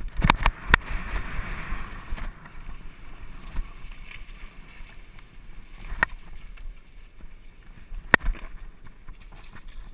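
Mountain bike riding a trail covered in dry leaves: a quick cluster of sharp knocks and rattles from the bike over bumps at the start, a rustling of tyres through the leaves for a couple of seconds, then steady rolling noise with two more single sharp knocks, about six and eight seconds in.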